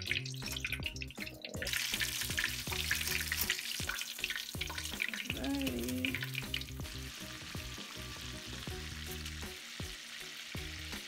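Chicken frying in hot safflower oil in a cast-iron skillet: a steady sizzle that grows louder about two seconds in, with scattered light clicks of a metal fork and spatula against the pan.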